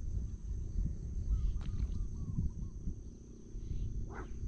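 Outdoor ambience: insects keep up a steady high trill while a bird gives a short run of four or five chirping notes about a second and a half in, over a low rumble.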